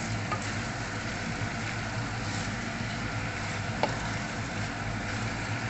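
Chicken curry frying in its own separated oil in a pot: a steady sizzle over a constant low hum, with a light click about four seconds in.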